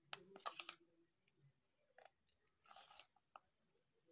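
Metal spoon scooping cooked peas in gravy from a steel bowl and spooning them onto a plate of papdi: faint scrapes and clicks, with two longer scraping sounds, one just after the start and one about three seconds in.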